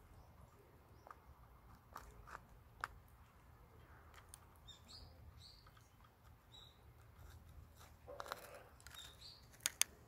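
Faint short, high bird chirps, several times through the middle, over a broody hen shifting on her straw nest in a basin; the straw rustles about eight seconds in, followed by two sharp clicks near the end.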